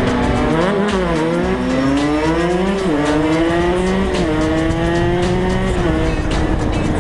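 125 cc two-stroke supermoto engine accelerating hard through the gears, its pitch climbing and then dropping at each upshift, four times.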